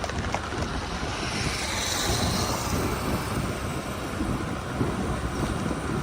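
A vehicle passing close by: a loud, steady rushing rumble that swells in just before and fades away just after.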